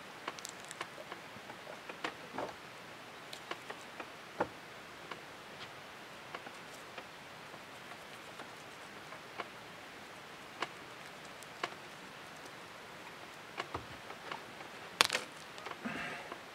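Scattered small clicks and taps of knife work and handling while cutting the tail off a beaver carcass, with one sharper click near the end.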